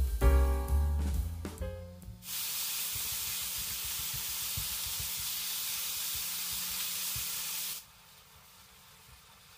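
Piano music fades out about two seconds in, then ground beef sizzles steadily in a hot frying pan for several seconds before cutting off abruptly near the end.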